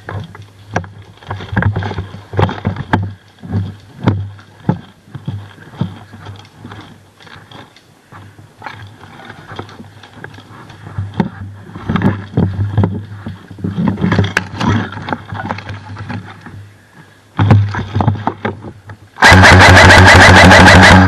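Irregular knocks and rustling, then, near the end, an airsoft electric gun fires one long, very loud full-auto burst of just under two seconds: a rapid even clatter of shots over the whine of its motor and gearbox.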